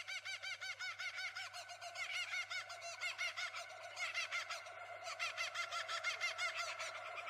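Birds calling outdoors: a dense, continuous run of short, rising-and-falling chirps repeated several times a second, with more than one voice overlapping.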